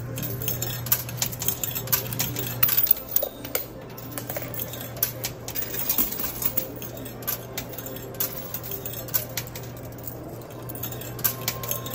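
Quarters dropping one after another into a coin pusher machine, clinking against the coins piled on the sliding shelf: many quick sharp metallic clicks, thickest about two and a half seconds in, over the machine's steady low hum.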